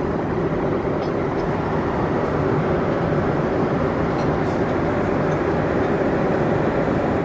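Steady airliner cabin noise in flight: the constant rush of air and jet engines, with a few faint ticks over it.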